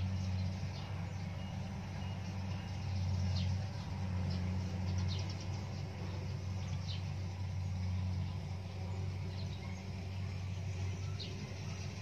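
Steady low engine drone of a rice combine harvester working the field. Short high bird chirps come every second or two.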